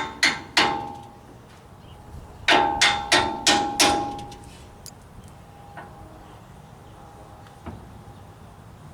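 Hammer striking steel parts of a skid steer hydraulic cylinder, each blow ringing with a metallic clang: two blows at the start, then after a pause a quick run of five blows about two and a half seconds in, followed by a few faint light clinks.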